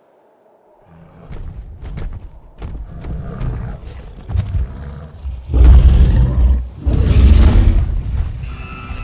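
Custom kaiju (giant monster) sound effect: a low rumble with scattered cracks builds for a few seconds, then two loud roars follow each other, each about a second long.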